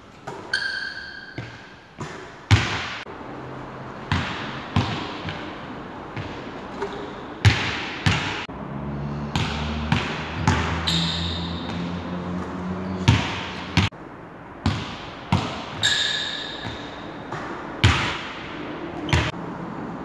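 A basketball bouncing on a wooden gym floor, about fifteen sharp, irregular bangs, each echoing in the large hall. A few brief high squeaks, likely from sneakers on the floor, come in between.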